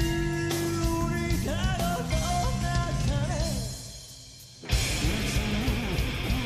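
Live rock band playing with a sung vocal: a long held note over the band, then wavering vocal and guitar lines. The music thins and falls away for about a second, then the full band comes back in suddenly, near the five-second mark.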